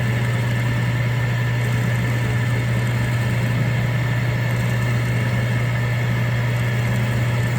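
Drill press motor running steadily with a 5/16-inch end mill spinning in the chuck during a milling pass, a constant low hum.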